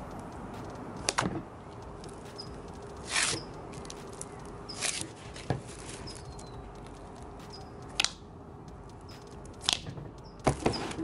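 Jelly slime being stretched, squeezed and poked by hand in a plastic tub, giving sharp wet pops and clicks every second or two over a steady background hiss.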